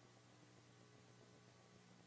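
Near silence: a faint, steady low hum with hiss.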